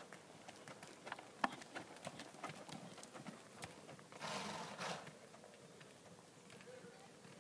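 A horse's hooves clip-clopping in an uneven run of sharp knocks, then a short breathy rush of noise, like a horse blowing out, about four seconds in.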